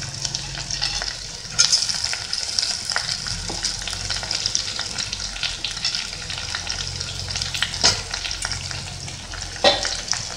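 Boiled bitter gourd slices sizzling in hot oil with onions in a stainless steel pot as they are stirred with a steel spoon. The sizzle grows louder about a second and a half in, and the spoon knocks sharply against the pot about three times.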